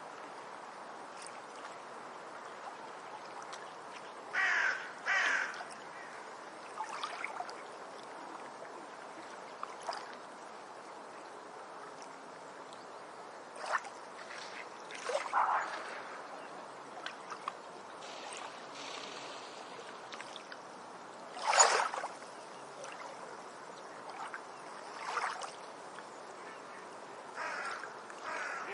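Ducks quacking now and then, in short separate calls. There is a pair a few seconds in and a louder single quack about two-thirds of the way through, over a steady background hiss.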